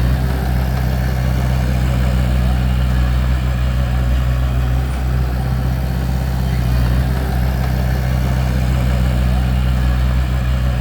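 Bulldozer's diesel engine running steadily, a low, even note with no change in speed.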